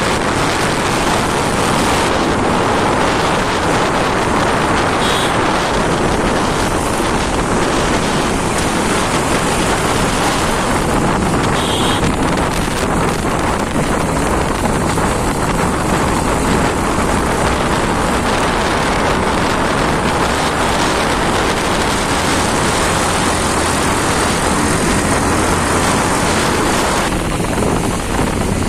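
Wind rushing over the microphone of a moving Bajaj Pulsar 220F motorcycle, with its single-cylinder engine running underneath in a steady, unbroken noise.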